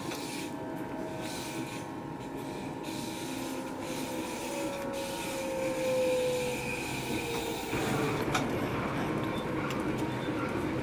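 Regional Express train running, heard from inside the carriage: a steady rumble of wheels on track, with a whining tone that slowly falls in pitch until about eight seconds in. The running noise then grows louder, with a sharp click.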